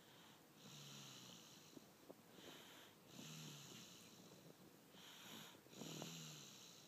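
A young child snoring softly in sleep: three slow snoring breaths, each a rasping draw of air.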